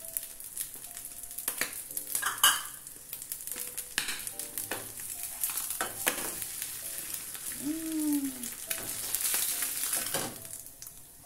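Egg frying in oil in a non-stick pan, a steady sizzle, with knocks and scrapes of a silicone spatula and a sharp clatter about two seconds in. The sizzle dies down near the end as the egg is lifted out.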